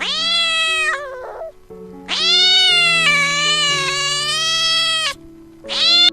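Domestic cat meowing three times: a meow of about a second, then a long, drawn-out meow of about three seconds, then a short one near the end, over soft background music.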